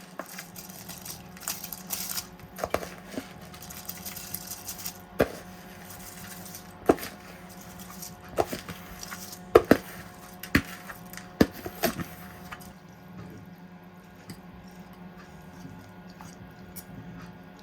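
Kitchen handling sounds: a utensil clinking and knocking against a cooking pot, a dozen or so sharp knocks that are loudest in the middle, over a steady low hum. The knocks thin out in the last few seconds.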